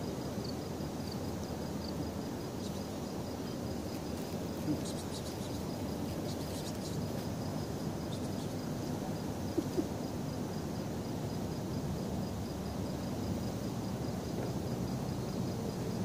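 Night ambience: a steady low background hum with an insect chirping at an even rate, high-pitched and faint. A few soft taps and rustles come about five and ten seconds in.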